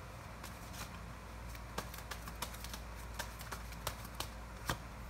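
Tarot cards being handled off to the side as the next card is drawn: light, scattered clicks and taps, roughly two a second, over a faint steady low hum.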